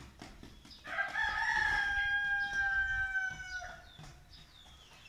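A rooster crowing once: one long call of about three seconds, held steady and dipping in pitch at the end.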